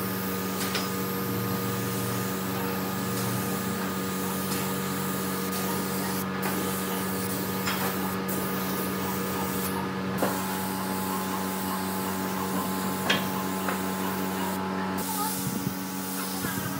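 Compressed-air spray gun hissing steadily as it sprays a clear finish coat, with a steady low hum under it. The hiss cuts out briefly a few times as the trigger is released, and there are a few light clicks.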